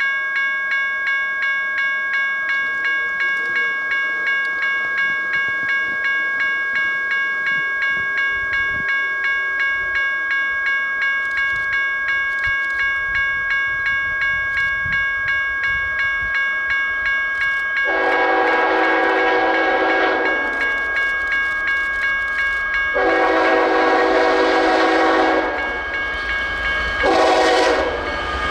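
A grade-crossing warning bell rings steadily at about two strokes a second as a BNSF freight train approaches. About two-thirds of the way in, the lead diesel locomotive's air horn sounds a series of long blasts, over the growing rumble of the train passing close by.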